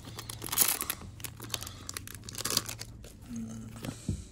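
A trading-card booster pack wrapper being torn open and crinkled by hand: a quick run of sharp crackles, loudest about half a second in, thinning out after about three seconds.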